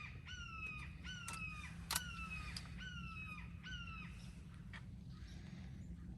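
Crows cawing: a quick run of short falling calls, about two a second, stopping a little after four seconds in. A steady low rumble runs underneath, with a sharp click about two seconds in.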